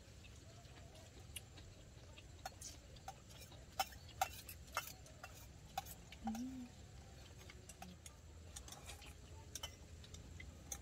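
Faint, scattered clicks and taps of eating utensils against plates and bowls during a meal, with a short hum of a voice about six seconds in.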